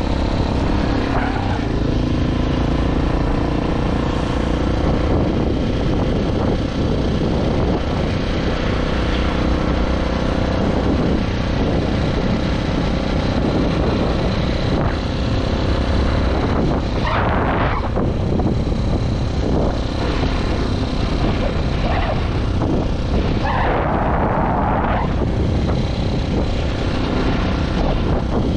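Italika DM150 motorcycle's 150 cc single-cylinder engine running steadily while riding, with road and wind noise on the microphone.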